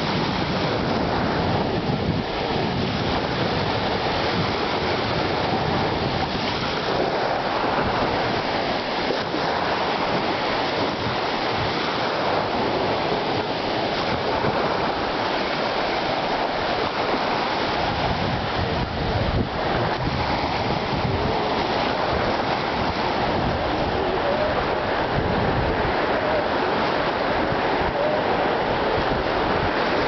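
Small Black Sea waves breaking and washing over a shallow sandy shore: a steady rushing surf.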